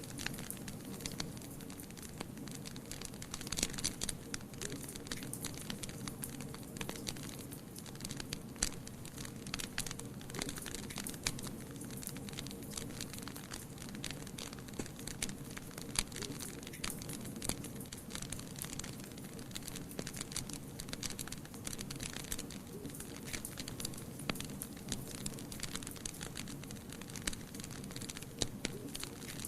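Wood fire burning in a fireplace, crackling with irregular snaps and pops, a few louder than the rest, over a steady low rush of the flames.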